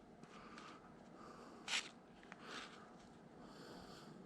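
Quiet small-room tone with faint handling noises and one short hiss of breath, a sniff, a little under two seconds in.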